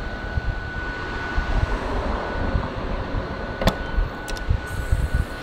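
Steady low rumble and hiss in the open air. About three and a half seconds in comes one sharp click, then two lighter clicks: the latch and handle of a fire truck's side compartment door being worked open.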